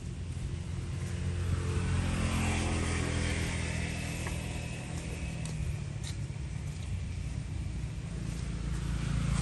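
A motor vehicle's engine running, growing louder over the first two seconds and then holding a steady drone.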